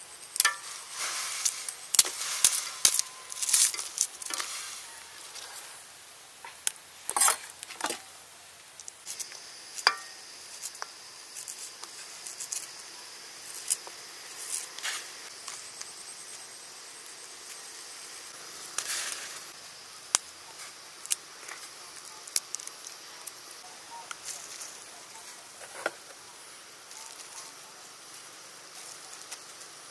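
Lemongrass stalks and root slices cut with a large knife and dropped into water in a steel wok: a run of sharp cuts, knocks and small splashes, busiest in the first few seconds, over a faint steady hiss.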